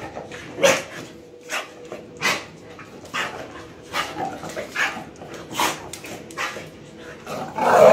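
Siberian husky puppy and an American Staffordshire terrier play-fighting, with short, sharp barks and yelps about once a second. The loudest, deeper bark comes near the end.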